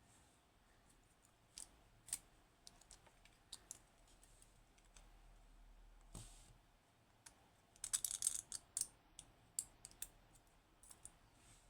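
Scattered faint clicks and ticks of small metal lock parts (pins, drivers and springs from a dimple lock cylinder) being handled and set down. There is a quick flurry of rattling ticks about eight seconds in.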